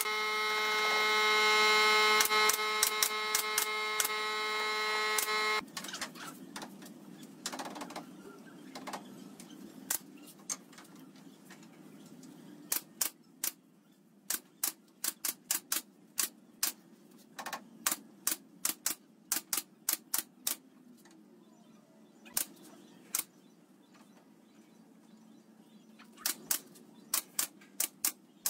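Nail gun firing nails into pine slats: dozens of sharp clacks, some single and some in quick runs of several shots. For the first five seconds a loud, steady, pitched machine hum runs under the shots and then cuts off suddenly.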